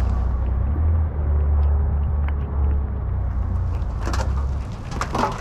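A low, steady rumble, with a few brief rustles and knocks about four and five seconds in.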